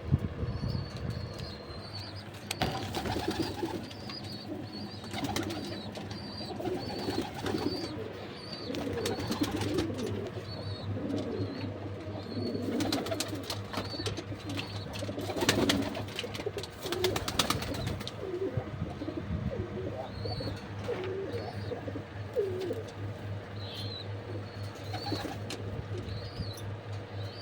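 Domestic pigeons cooing over and over in low wavering calls, with a few short rustling bursts and a steady low hum underneath.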